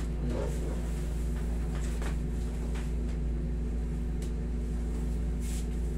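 Steady low hum of a running room air conditioner, with a few faint rustles of cloth as a leg is bent and pressed during a massage.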